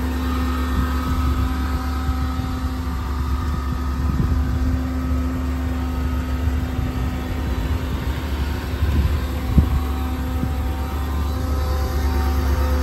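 Ford F-550's 7.3-litre gas V8 idling steadily, a low rumble with a constant hum over it; one sharp tap about ten seconds in.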